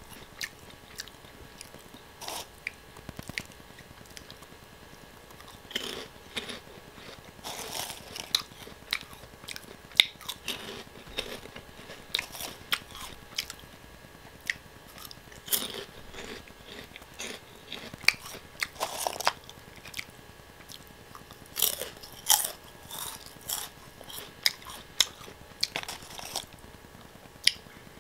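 Close-up crunching and chewing of Oh!Potato, crisp Korean potato snack sticks, in repeated bites: sharp crackly crunches come in short clusters every few seconds, with softer chewing between them.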